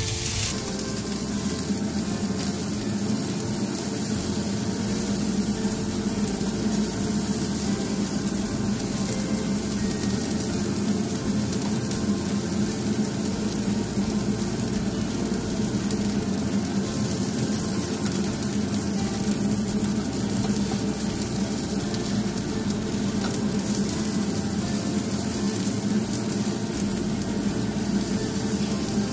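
Cherry tomatoes sizzling steadily in hot olive oil in a small frying pan while a spatula stirs them, their skins cooking until they char.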